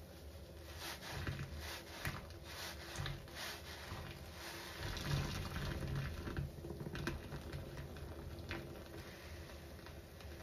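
A large foam sponge full of thick soapy lather squeezed and kneaded in gloved hands: wet squelching with dense crackling of the suds, busiest and loudest around the middle, quieter for the last few seconds.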